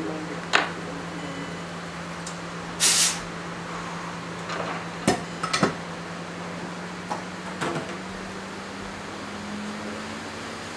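A steady low machine hum runs under light clicks and taps of small metal tools on a reballing stencil, with a short burst of hiss about three seconds in.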